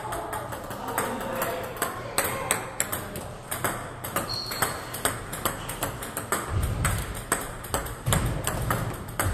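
Table tennis ball clicking off bats and the table in quick, irregular succession, about two or three sharp clicks a second, over faint background voices. Two dull low thumps come in the second half.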